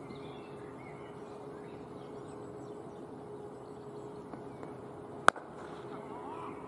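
Faint birdsong over a quiet steady background, then about five seconds in a single sharp crack of a cricket ball striking the bat.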